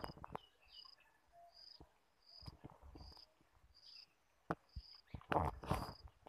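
An insect chirping steadily, one short high chirp about every two-thirds of a second. Louder scuffing noise comes in about four and a half seconds in and again just after five seconds.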